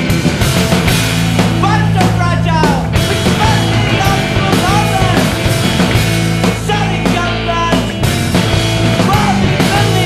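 Loud rock music: a full-band punk-rock song playing continuously.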